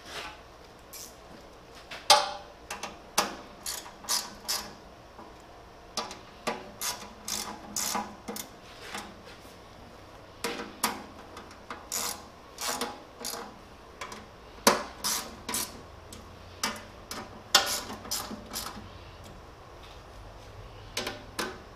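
Irregular sharp metallic clicks and clinks of a wrench tightening the nuts and bolts that fasten steel drawer slide rails to a sheet-steel drawer.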